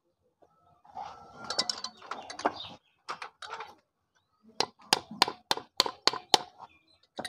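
Metal clattering as the Honda CD-70 engine's crankcase half is handled, then a quick run of seven hammer blows on the case, about three a second, and one more near the end. The blows are meant to free the gear transmission, which is stuck because its seal has jammed.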